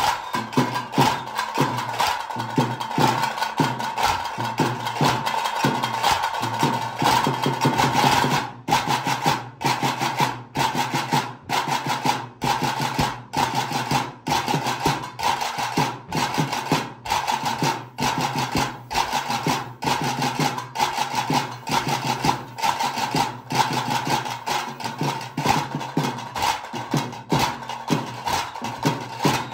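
Tase drums playing the fast, dense tiger-dance (pili nalike) beat, with a ringing, rasping edge. From about eight seconds in, the beat pulses, breaking off briefly about once a second.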